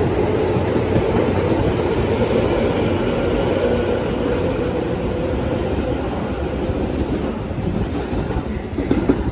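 Tobu 9000-series electric commuter train running, its armature chopper control giving faint steady tones over the rumble and clatter of the wheels. The sound slowly fades, and a short knock comes near the end.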